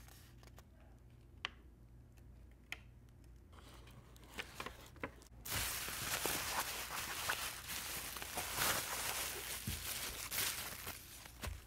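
Plastic bubble wrap crinkling and rustling as hands unroll it from a paper-wrapped package, starting about five and a half seconds in. Before that, only a few light paper rustles and taps.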